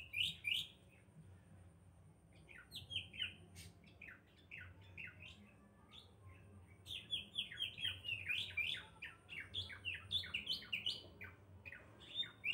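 Small birds chirping in quick runs of short, falling notes, with gaps between the runs, over a low steady hum.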